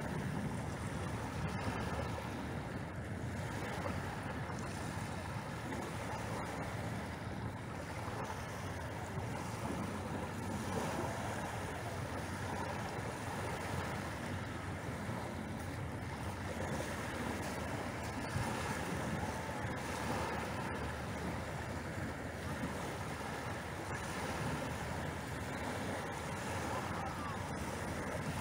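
Small, gentle sea waves breaking and washing onto a pebble beach, a steady wash with no separate crashes.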